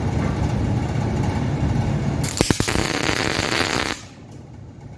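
MIG welder tack-welding a steel bar to a heavy-wall steel pipe. A short burst of arc crackle and hiss starts a little after halfway and lasts about a second and a half, then cuts off. Before it there is a steady low hum.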